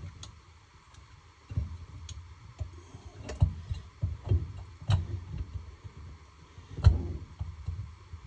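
Metal engine parts clicking and knocking as the cylinder is worked down over the piston while the rings are squeezed in by hand, on a two-stroke snowmobile engine. The knocks come irregularly, with one sharper knock about seven seconds in.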